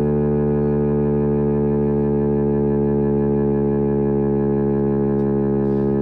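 Federal Signal STH-10 outdoor warning siren sounding the steady tone of a 3-minute alert, loud and unwavering in pitch, heard from directly beneath the siren during its monthly test.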